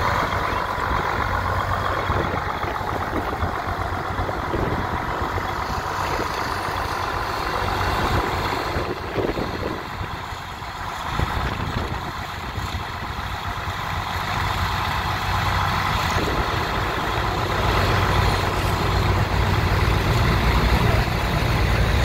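Vintage Case farm tractor engine running at low speed as the tractor is moved up to and hitched to the pulling sled; a steady engine hum that swells slightly near the end.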